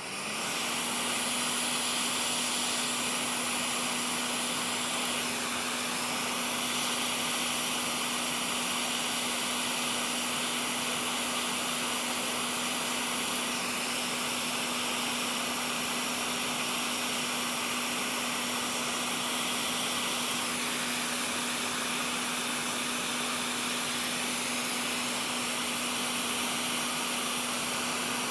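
Small electric blower motor spinning up and then running steadily, with a rushing hiss of air over a constant hum.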